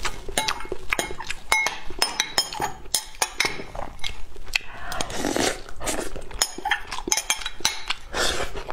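Metal spoon clinking and scraping against a glass bowl as rice is scooped up, many sharp clicks in quick succession, with close-miked mouth sounds of eating in between.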